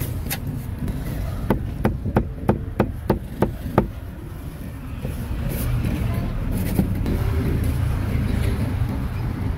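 A cleaver chopping grilled meat on a chopping block: about eight quick strokes, roughly three a second, over a steady rumble of street traffic.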